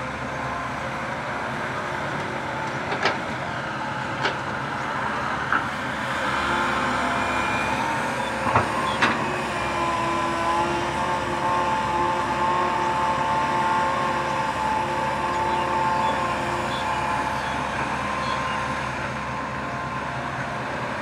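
Komatsu PC130 hydraulic excavator's diesel engine running steadily under load as it digs and swings, with a steady whine from the hydraulics while the arm and bucket work. A few sharp knocks come in the first half.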